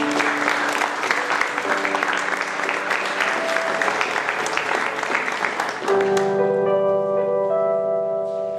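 Audience applauding over music with long held notes; the applause dies away about six seconds in, leaving the music playing on its own.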